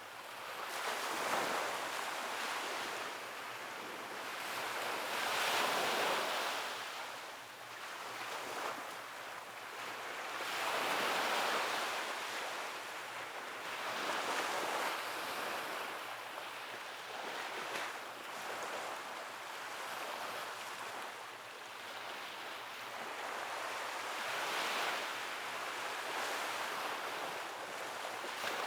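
Sea waves breaking and washing onto the shore, the surf swelling and fading every few seconds.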